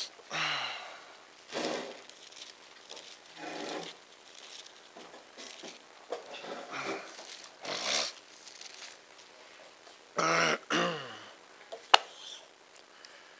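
A man's short, low vocal noises close to a cheek-worn microphone, grunts, hums and throat clearing, several times over, with papers being handled and a sharp click about twelve seconds in.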